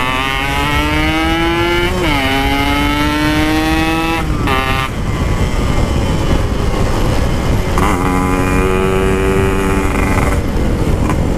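Yamaha RX-King 135cc single-cylinder two-stroke with an aftermarket expansion-chamber exhaust, accelerating under way: the engine note climbs, drops at an upshift about two seconds in and climbs again. Around four seconds in it breaks off into a noisy stretch, and about eight seconds in a steadier engine note returns for a couple of seconds.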